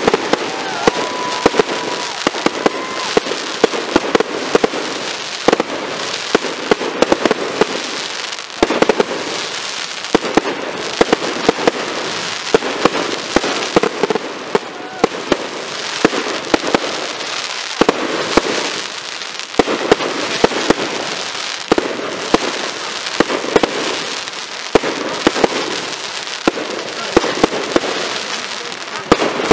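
Fireworks display: aerial shells bursting overhead in a rapid, irregular barrage of sharp bangs, with a continuous crackling hiss between them.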